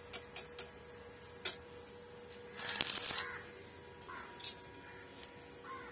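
Stick (arc) welder tack-welding a steel flat-bar bracket: short crackling arc strikes, the longest lasting about half a second near the middle, over a faint steady hum.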